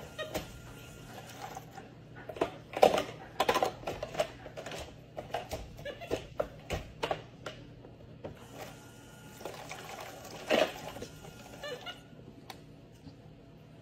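Plastic toy dishes clattering and knocking in a toy play sink as a capuchin monkey handles them: irregular clacks and taps, the loudest about 3 s in and just after 10 s, with a quick little rattle near the end.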